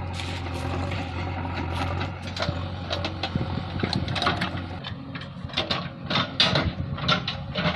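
JCB 3DX backhoe loader's diesel engine running steadily, then a rapid run of metallic clanks and knocks from about two seconds in as the machine works.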